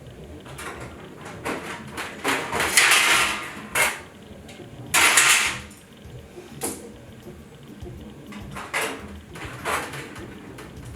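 Parts of an aircraft wing skeleton being handled and taken apart: a string of knocks and clatter, with two longer scraping sounds, about two and a half and five seconds in.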